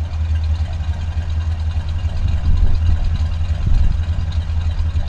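1948 Lincoln Continental's original, rebuilt flathead V12 idling steadily, its exhaust note heard from behind the car at the tailpipe: an even, deep burble.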